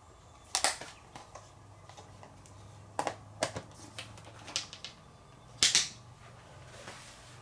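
Sharp plastic clicks and knocks as a small 12-volt rice cooker's inner tray and lid are handled and fitted in place, about half a dozen in all, the loudest just after the start and near the end.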